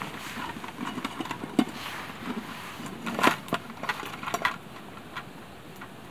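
Irregular small clinks and knocks of metal camp gear being handled at a gas camp stove, the loudest about three seconds in, dying away near the end.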